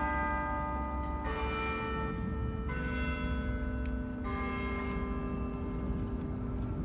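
Bells chiming a slow phrase of four notes, struck about a second and a half apart. Each note rings on and overlaps the next, and the last one fades out.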